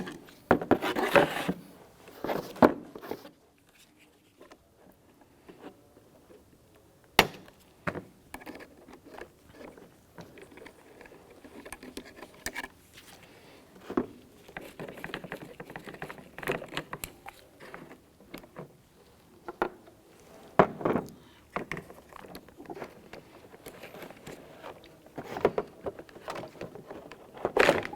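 Scattered clicks, rattles and scraping of hand work on plastic and metal parts inside a car door, as the door lock actuator and its linkage clips are freed and pulled out, with one sharp click about seven seconds in.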